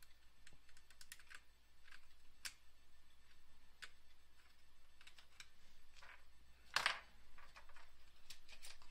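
Faint, scattered light clicks and taps of a printed circuit board and its parts being handled on a bench, with one louder scrape about seven seconds in.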